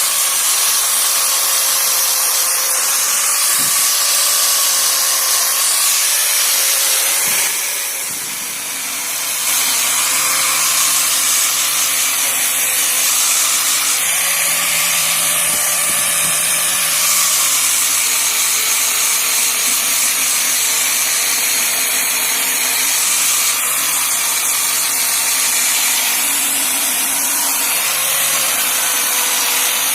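4-inch angle grinder running steadily with a polishing pad held against a motorcycle engine casing, giving a continuous high-pitched grinding noise. It eases off briefly about eight seconds in.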